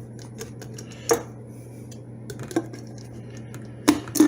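Scattered light plastic clicks and knocks from handling the parts of a small drip coffee maker, with two sharper knocks close together near the end, over a low steady hum.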